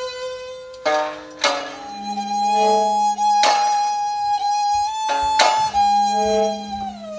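Live experimental ensemble music led by held, bowed violin-like string tones over a low tone that swells in and out. About four sharp struck or plucked attacks break in, and near the end the high held note slides down in pitch.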